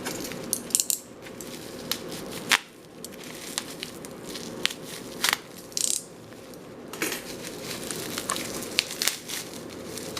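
Plastic packaging crinkling and rustling, with scattered clicks and taps as small bagged parts are handled.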